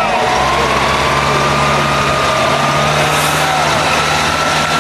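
A trial truck's diesel engine running hard under heavy load as the truck struggles through a deep ditch, with a high whine that slowly rises in pitch.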